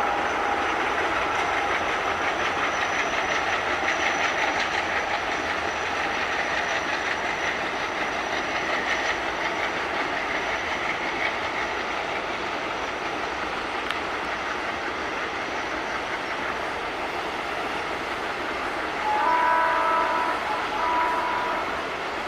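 Loaded freight train of BCNA covered wagons rolling steadily over a river viaduct, with continuous wheel and rail clatter. Near the end a diesel locomotive horn sounds a chord in two short blasts.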